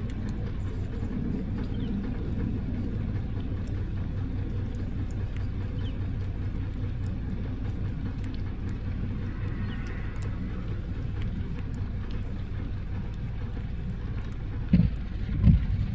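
Vehicle engine idling: a steady low rumble, with two short loud low thumps near the end.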